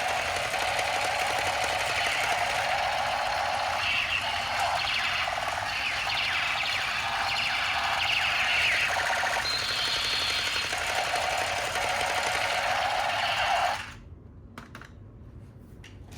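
Electronic sound effect from a battery-powered toy's small speaker: a loud buzzing, rattling effect with no bass. It cuts off suddenly near the end, followed by a few light clicks.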